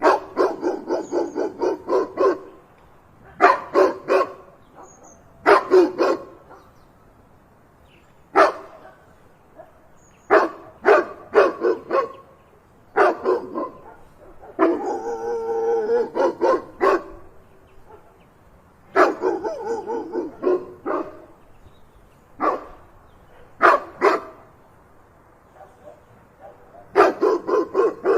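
Dog barking loudly in volleys of quick barks with short pauses between them, and one longer drawn-out call about halfway through.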